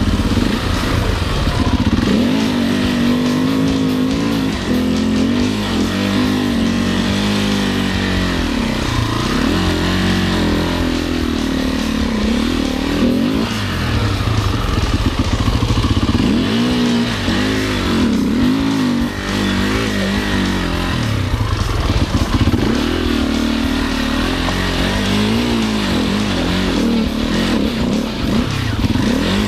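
Enduro motorcycle engine revving up and down again and again, its pitch rising and falling every second or two.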